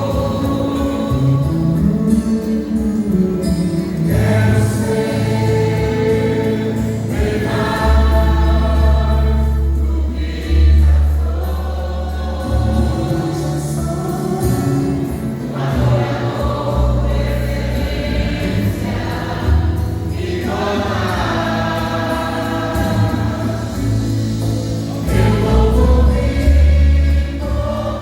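A vocal group sings a gospel worship song in harmony over accompaniment with long, held bass notes.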